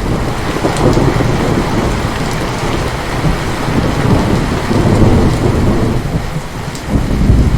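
Heavy rain falling steadily, with a long rolling rumble of thunder that swells and ebbs, strongest about five seconds in and again near the end.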